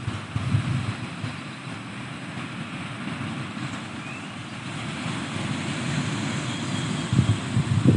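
Pacific Ocean surf washing steadily against the shore, with low gusts of wind buffeting the microphone about half a second in and again near the end.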